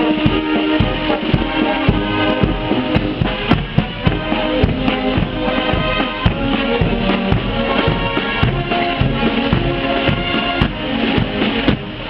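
Music with a busy, steady drum beat under pitched instruments playing a tune.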